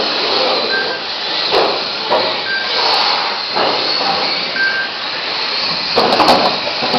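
Electric radio-controlled Mini racing cars running on a track, with a steady high whine of motors and tyres. Sharp knocks come about a second and a half, three and six seconds in, the loudest near the end.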